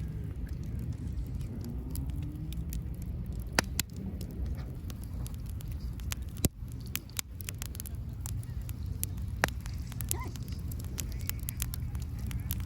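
Wood bonfire crackling, with irregular sharp pops and snaps over a steady low rumble.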